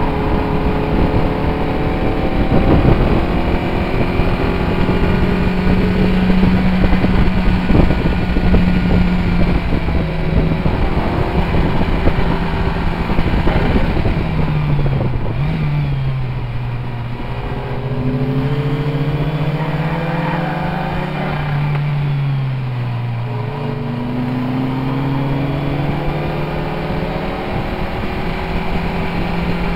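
Turbocharged Scion xA's four-cylinder engine, heard from inside the cabin, pulling hard under load around a race track. Its pitch holds high for the first half, then drops and climbs back up twice as the driver lifts off and accelerates again, over steady road and wind noise.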